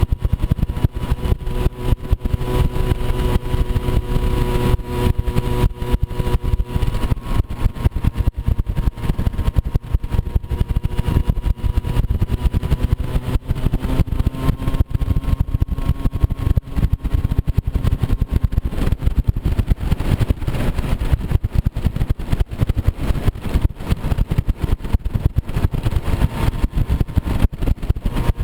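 Moped scooter engine running steadily while riding an off-road trail, its pitch drifting slowly with the throttle, over a constant rough low rumble.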